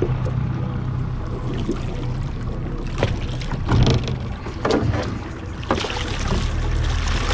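Striped bass thrashing and splashing against the side of a small skiff as it is brought to hand, with several sharp splashes and knocks over a steady low rumble of wind and water.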